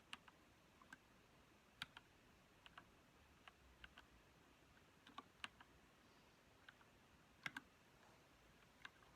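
Keychron K2 mechanical keyboard being typed on very slowly: faint, single key clicks at an uneven pace, with pauses between them.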